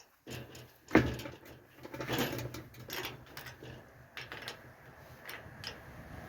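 Hand work on a farm gate's hinge hardware: one sharp knock about a second in, then scattered clicks and rattles.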